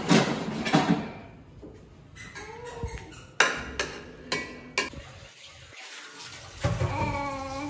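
Steel ladle stirring and clanking against an aluminium cooking pot of boiling vegetables, with several sharp metallic knocks and short ringing in the middle. A short pitched voice comes in near the end.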